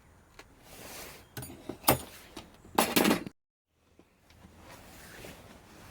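Handling noise from a paper vacuum cleaner bag: a couple of sharp knocks, then a short burst of rustling that cuts off abruptly.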